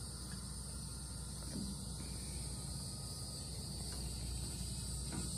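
Steady high-pitched chirring of an insect chorus, with a faint low rumble beneath it.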